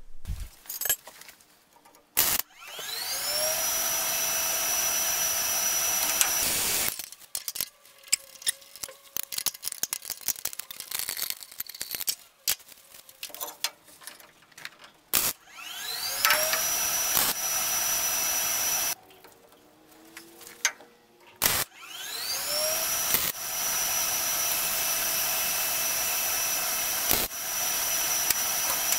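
Electric grinder spinning up to a steady high whine and running for several seconds before cutting off, three times. Light clattering and clicks of parts being handled come in between.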